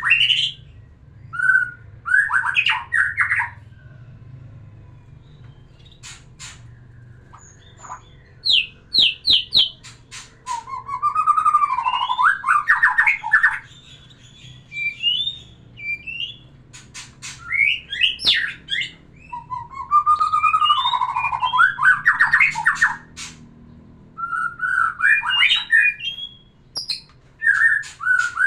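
White-rumped shama (murai batu) singing: varied phrases of whistles, rapid note series, sharp clicks and harsh notes, each a second or two long, with short pauses between them.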